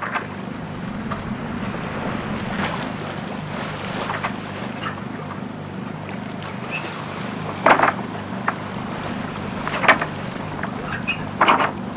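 Sailboat under sail in open-ocean swell: water rushing and splashing along the hull, with wind on the microphone. Under it runs a steady low hum from the boat's generator. Three louder wave splashes come in the second half.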